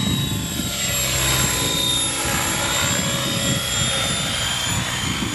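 Align T-REX 700E electric radio-controlled helicopter in flight: steady rotor noise with a high drivetrain whine running through it.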